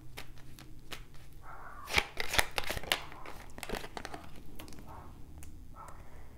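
Tarot cards being handled and set down on a stone countertop: light taps and card rustles, with a quick run of sharp clicks and slaps about two seconds in.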